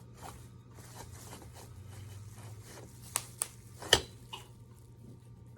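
Handling noises while a folding bike is put together: rustling with a few sharp clicks, the loudest about four seconds in.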